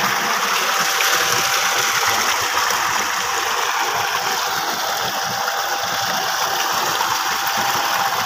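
Water gushing from a steel pipe into a concrete tank, a steady rushing splash, as a solar-powered well pump delivers its flow. A faint steady whine sits underneath.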